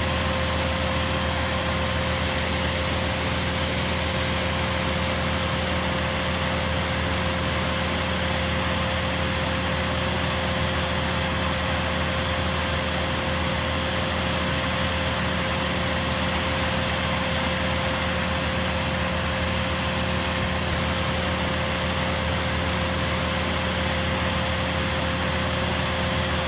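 Crane's engine running steadily while it lifts the fallen tree, an even hum with a constant whine that does not change.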